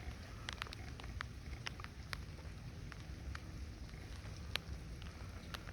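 Light rain: scattered sharp ticks of raindrops falling over a steady low rumble.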